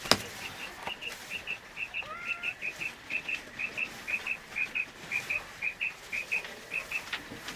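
A bird calling in a steady run of short, high, paired chirps, about three pairs a second, opened by one sharp click.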